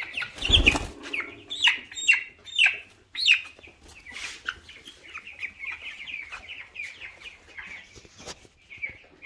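18-day-old broiler chickens cheeping, short high falling calls, loud and scattered at first, then a dense steady chorus. A loud thump comes about half a second in, and a sharp click near the end.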